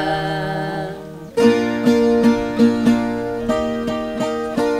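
A held sung note fades out. Then, about a second and a half in, a ten-string viola caipira picks a quick melodic run of plucked notes, an instrumental fill between verses of a moda de viola.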